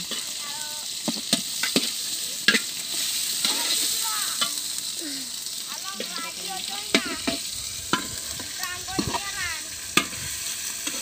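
Onions and tomatoes sizzling in hot oil in an aluminium pot, stirred with a metal ladle: a steady sizzle with irregular clinks and scrapes of the ladle against the pot.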